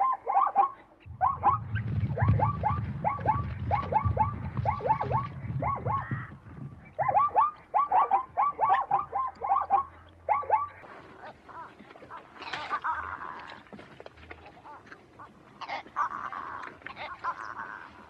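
Zebra braying: long runs of short, yelping barks, about four or five a second, broken by brief pauses. The calls give way to softer breathy sounds in the last third.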